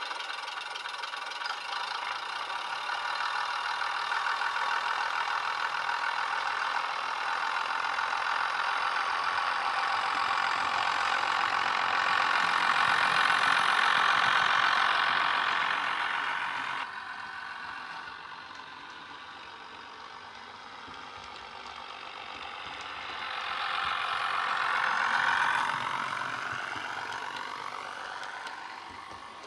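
Diesel multiple unit engine sound from a Legomanbiffo 'Llangollen' Class 101 DCC sound file, played through a small bass-enhanced speaker inside a Bachmann Class 101 two-car model as it runs. The engine sound builds to its loudest around the middle, drops suddenly at about 17 seconds, swells again shortly before the end and then fades.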